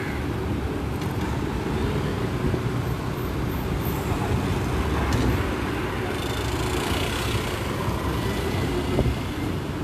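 Steady road traffic noise: an even rumble of passing vehicles.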